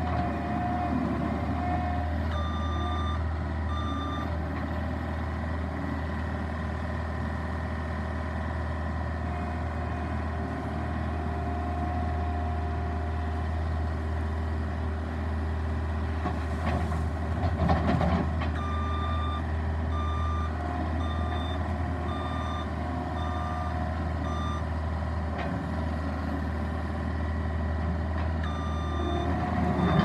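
John Deere 329E compact track loader's diesel engine running steadily, its backup alarm beeping in spells at about one and a half beeps a second as it reverses. A little past halfway, a short rough scraping rattle as the bucket works the gravel pile.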